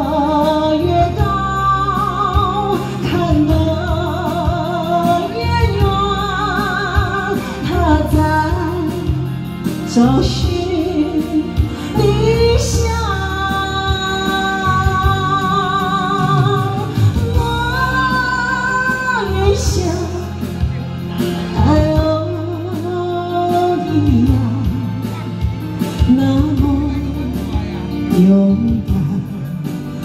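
A woman singing into a handheld microphone through a PA, over backing music, with long held notes that carry a vibrato.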